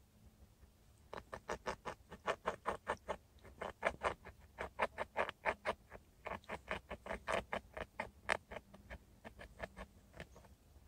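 Beavers inside their lodge making rapid, rhythmic short sounds, about six a second, in several runs with brief pauses.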